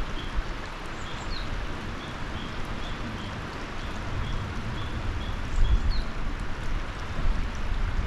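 Clear mountain river flowing over stones: a steady rushing babble with an uneven low rumble. Over it, a bird repeats a short high note about twice a second until about two-thirds through, and a brief rising chirp comes twice.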